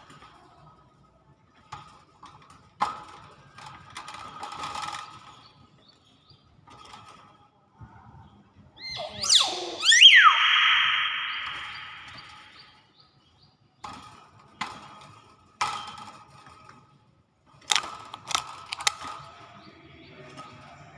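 Hill myna calling. About nine seconds in come a couple of quick falling whistles, then a harsh rasping screech that fades over about two seconds. Sharp clicks are scattered before and after.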